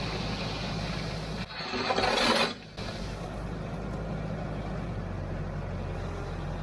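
TYM T574 compact tractor's diesel engine running steadily while pulling a land plane, with a brief loud rushing noise about a second and a half in.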